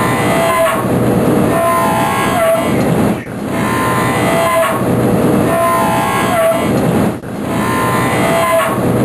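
Loud, steady mechanical din that repeats in a cycle, with short tonal streaks about every two seconds and a brief drop in level about three seconds in and again about seven seconds in.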